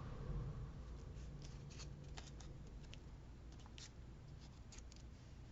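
Faint handling of paper cut-outs and craft supplies: a scattering of light ticks and rustles at uneven intervals, over a low steady room hum.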